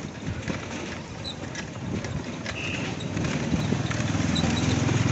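Rattling and road noise of a moving rickshaw, with many small clicks and knocks from the frame. A low drone grows louder in the second half.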